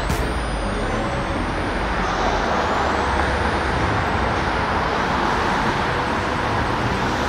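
Road traffic: cars and a pickup driving past on a busy city street, a steady tyre and engine noise with a low rumble that swells a little in the middle as vehicles pass close.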